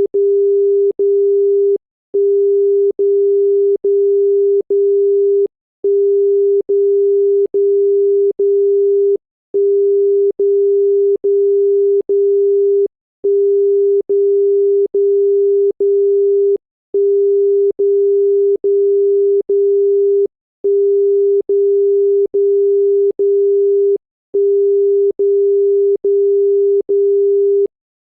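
A loud, single-pitched electronic tone sounding in beeps of under a second each, with a faint click between beeps. The beeps come in groups of four, each group followed by a brief pause, and the pattern repeats evenly.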